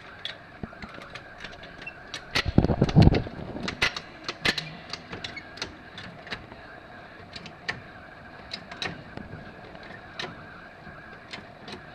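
Floor jack being set under the car and pumped: scattered metallic clicks and clanks, with a loud low thud and rumble about two and a half seconds in.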